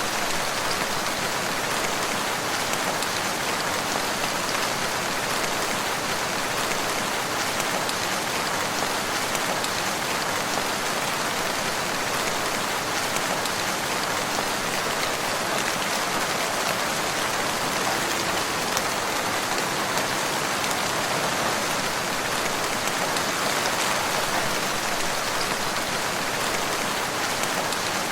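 Steady rain falling, an even patter of drops on a surface with no let-up or thunder.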